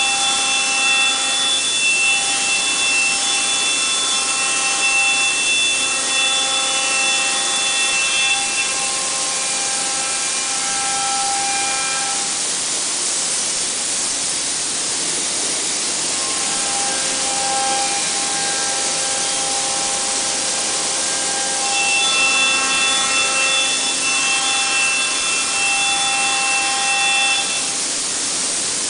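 CNC router spindle cutting a wood panel, with a steady rushing hiss of dust extraction under a high, steady whine. The whine drops out for about four seconds midway, then comes back, while the hiss carries on.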